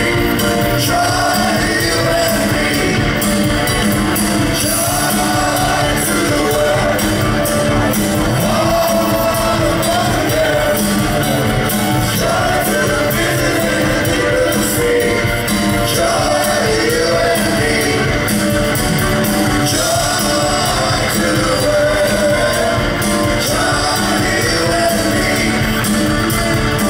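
Live rock band playing with a lead vocal and other voices singing, over bass guitar, drums and keyboards, heard from among the audience in a concert hall.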